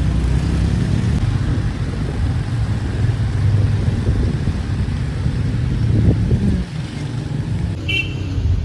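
Car running on the road, a steady low engine and road rumble that eases off about two-thirds of the way through, with a brief high chirp near the end.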